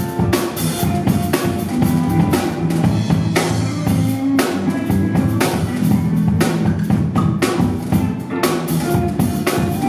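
Music with a drum kit: kick and snare hits keeping a steady beat over held low notes.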